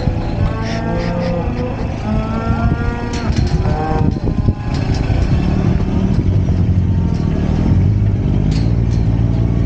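Cattle mooing several times over a running engine; the calls fade after about four seconds. The steady engine of a John Deere Gator 855D utility vehicle, a diesel, then carries on alone as it drives.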